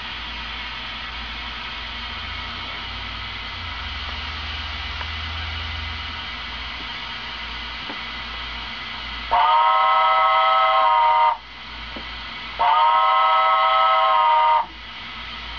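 Märklin 37082 BR 10 model steam locomotive's sound decoder playing two long steam-whistle blasts through its small onboard speaker, each about two seconds long, with a short gap between them. A steady hiss runs underneath before and between the blasts.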